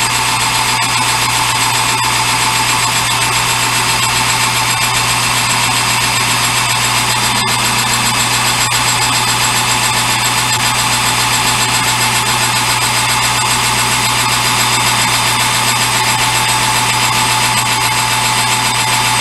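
Metalworking machine tool running steadily while taking a light cut off a part, with a steady whine throughout.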